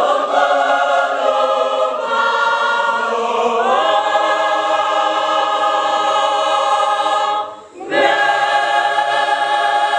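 Church choir singing in long held notes, several voices together. The singing breaks off briefly about seven and a half seconds in, then the next phrase starts.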